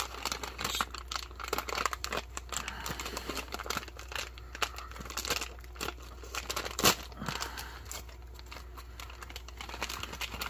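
Silver foil ration pouch holding a whole wheat tortilla, crinkling and tearing as it is ripped open and worked by hand: dense, irregular crackles, with one louder crackle about seven seconds in.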